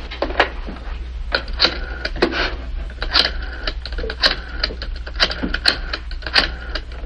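Rotary-dial telephone being dialed: a run of quick, uneven mechanical clicks as the dial is turned and spins back for one digit after another, over a steady low hum.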